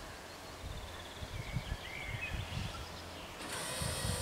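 Wind buffeting and a few bird chirps, then about three and a half seconds in the level-crossing barrier drives start with a sudden steady whine as the red-and-white barrier arms begin to lower.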